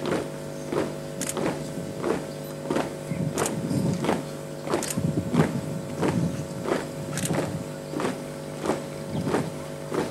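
Flag-raising troop marching in step, their boots striking the ground together in a steady beat of about three steps every two seconds.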